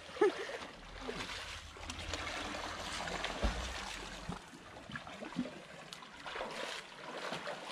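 Sea water splashing and sloshing as a swimmer does breaststroke, with a low rumble during the first few seconds.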